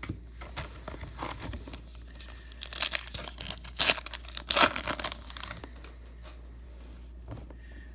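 A baseball card pack's wrapper being torn open and crinkled in the hands, with a few sharp rips loudest about halfway through.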